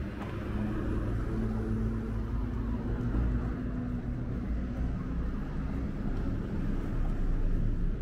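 A car running close by on the street, a steady engine rumble with tyre noise.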